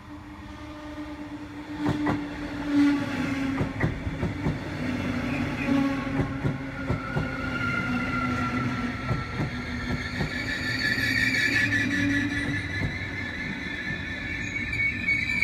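A DB Regio double-deck push-pull train with a class 146 electric locomotive draws in and rolls past the platform. A steady rumble builds, broken by sharp clicks from the wheels. High squealing tones grow in the second half as the train slows.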